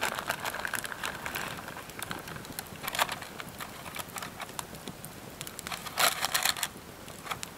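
Plastic bag of shredded chicken crinkling and rustling as the meat is pulled out by hand and laid into a Dutch oven, with scattered small crackles throughout and louder rustles about three seconds in and again around six seconds.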